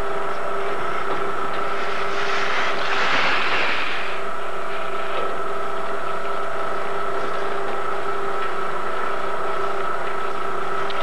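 A steady mechanical hum with a few fixed tones, joined about two seconds in by a rushing noise that fades out after about two seconds.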